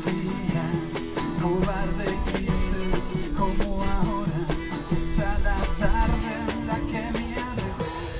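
Live band playing a rock song: acoustic and electric guitars over a drum kit keeping a steady cymbal beat, with a melodic line wavering in pitch above them.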